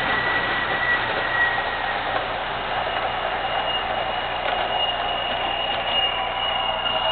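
MTH O-gauge R32 model subway train running, a steady rushing rumble with a thin high whine in the first two seconds and another whine coming in about halfway.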